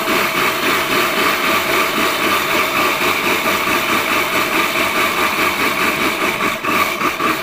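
Electric mixer grinder running steadily with dry pearl millet in its steel jar, driven by the push button to rub the husks off the grains.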